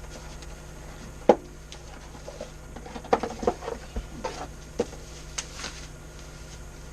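Hands handling a newly unboxed wired gaming controller and its packaging: scattered clicks and light rustling, with one sharp knock about a second in and a cluster of clicks near the middle, over a steady low hum.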